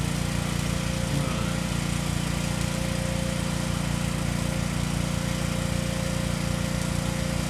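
A small engine running steadily at one constant speed.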